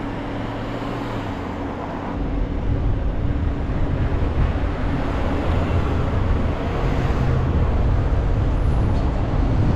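Car sitting at a traffic light with a steady hum, then pulling away about two seconds in; a deep engine and road rumble builds and carries on as it drives, with passing traffic.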